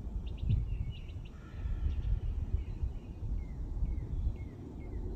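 Outdoor ambience: a low, uneven rumble of wind on the microphone, with a bird chirping over it, short falling notes about twice a second in the second half.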